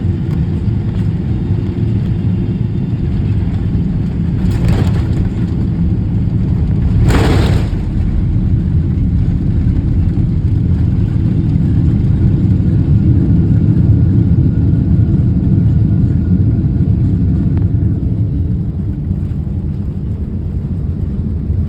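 Boeing 777 landing: a loud, steady low rumble with two short hissing bursts about five and seven seconds in.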